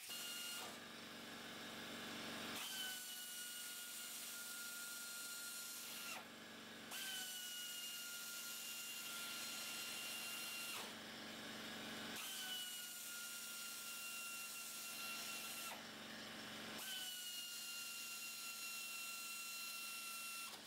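Pneumatic 3/8-inch air ratchet whining as it spins nuts along a threaded U-bolt, in about five runs of three to four seconds with short breaks between them. At the start of each run the pitch drops slightly, then holds steady.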